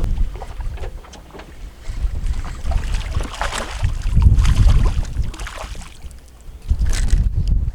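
Wind buffeting the microphone in uneven low gusts, with scattered short clicks and rustles between them.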